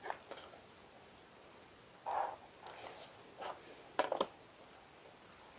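Felt-tip marker stroking across paper, with faint scratching and hissing, then a plastic set square being moved and set down with two quick clicks about four seconds in.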